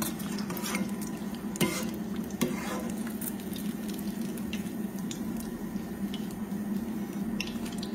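Hot oil sizzling around zeppole (fried dough balls) in a steel frying pan. A perforated metal skimmer clicks and scrapes against the pan a few times as the zeppole are lifted out to drain, over a steady low hum.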